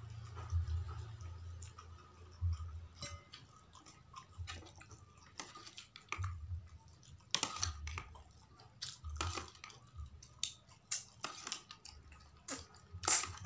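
Close-up mukbang eating sounds: chewing and wet mouth smacks as two people eat snapper-head curry with rice by hand, with fingers picking flesh from the fish head. Irregular sharp clicks and smacks come throughout, with soft low thumps.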